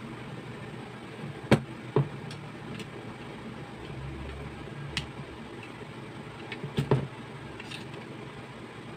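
A handful of sharp clicks and taps, irregularly spaced over a faint steady hum, as a thin screwdriver works at the angle grinder's gear-head housing around its seized bearing. The loudest tap comes about one and a half seconds in.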